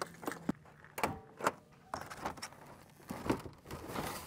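Thule roof cargo box on a car being unlatched and its lid lifted open: a series of short, sharp plastic clicks and knocks.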